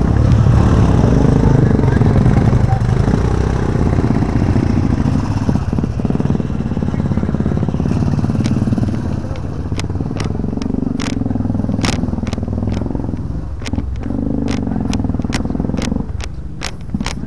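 Motorcycle engines running at low revs as the bikes pick their way over a rocky track. From about halfway through, sharp clicks and crunches of loose stones come through over the engines.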